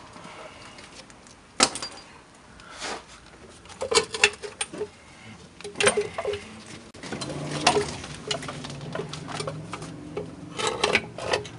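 Scattered metallic clinks and knocks of tools and parts being handled while the engine and transaxle are lowered out from under a car, a few sharp strikes at a time. A low steady hum sets in about seven seconds in.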